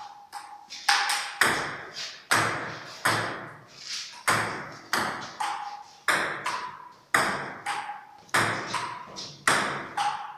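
Table tennis rally: the ball hitting the table and the bats in turn, a steady run of sharp, echoing clicks about every half second, some with a short ringing ping.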